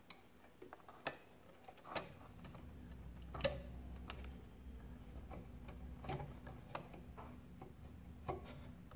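Scattered small clicks and knocks of wire spade connectors and plastic fittings being worked loose by hand inside a dismantled DeLonghi ESAM espresso machine, the sharpest click about three and a half seconds in.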